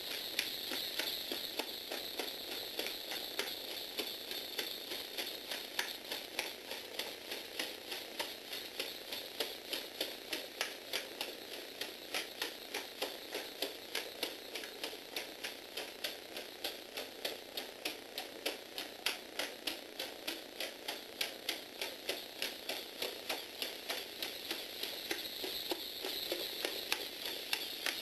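Lego Technic four-legged walking robot driven by a Power Functions motor: its motor and gears whir steadily while its legs and plastic feet click on a wooden floor in an even rhythm, about three clicks a second.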